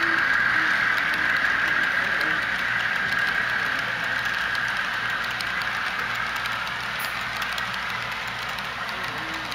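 HO scale model freight cars rolling past on the track, a steady rattle of small metal wheels on rail that fades gradually as the end of the train goes by.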